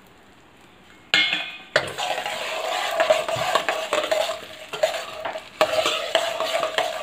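Steel ladle stirring and scraping mustard and fenugreek seeds round a kadai, the seeds frying in hot oil for a tempering. It starts suddenly about a second in and goes on as continuous scraping with light clicks.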